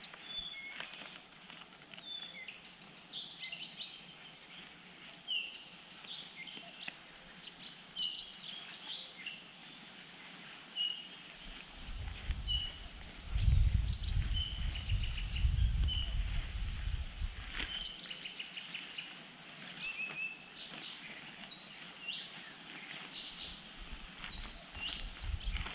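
Several small songbirds chirping and whistling in short, repeated calls, over a faint outdoor background. About halfway through, a low rumble lasts around six seconds.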